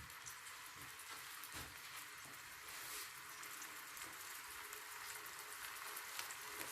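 Chicken pieces frying in hot oil in a pan: a faint, steady sizzle with scattered small pops of spitting oil while the meat browns.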